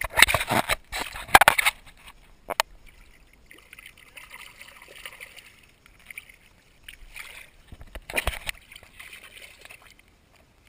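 A hand splashing and sweeping through shallow seawater right at the microphone: loud splashes through the first second and a half and again about eight seconds in, with softer swishing and sloshing in between.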